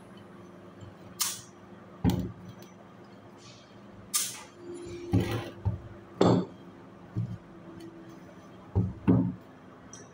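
Car AC compressor handled and shifted on a wooden workbench: several separate knocks and clinks of metal on wood, with a few short swishes, over a faint steady hum.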